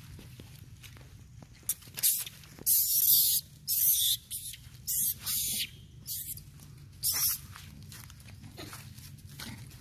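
Young long-tailed macaque screaming in a string of harsh, high-pitched bursts, loudest about three seconds in and stopping after about seven seconds.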